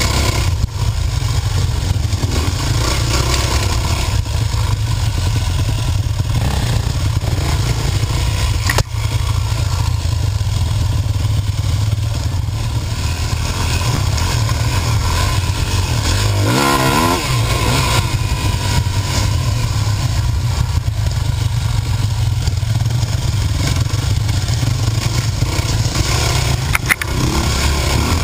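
Dirt bike engine running close up while riding a trail, the revs rising and falling, with a quick rev change about 17 seconds in.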